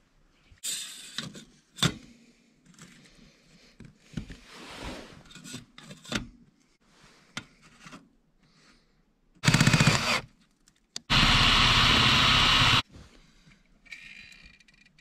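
Cordless drill with a driver bit running in two loud runs, a short one about nine and a half seconds in and a longer, steady one a couple of seconds later, most likely driving screws into the stainless steel chimney pipe. Before that there are scattered rubbing, scraping and clicking sounds from handling the pipe and tools.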